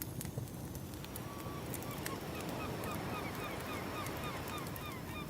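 Campfire crackling over a steady rumble of ocean waves, with a rapid series of short falling bird calls starting about two seconds in and running on.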